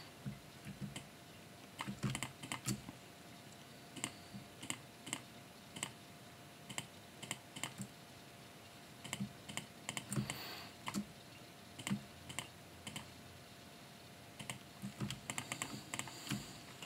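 Irregular, quiet clicks of a computer mouse and keyboard keys, some in quick pairs and clusters, over a faint steady hum.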